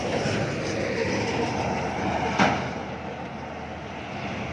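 A motor vehicle passing close by on the road, with a single sharp knock about two and a half seconds in.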